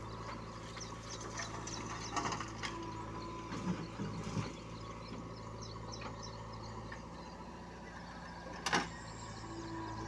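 JCB 3DX backhoe loader's diesel engine running steadily as the backhoe arm works the bucket in soil. A few knocks and clatters come about two and four seconds in, and a single sharp clank about nine seconds in is the loudest sound.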